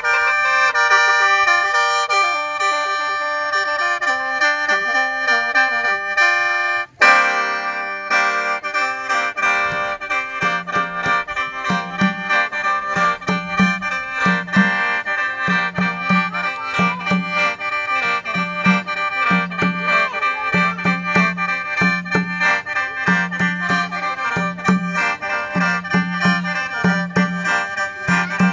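Khaen (Isan bamboo free-reed mouth organ) playing sustained chords over a drone. There is a brief break about seven seconds in. After it a regular pulsing low note sets a beat about once a second.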